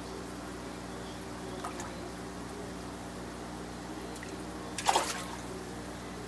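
Water in a fish tank trickling over a steady pump hum, with one short splash about five seconds in as a big red-tailed catfish stirs the surface.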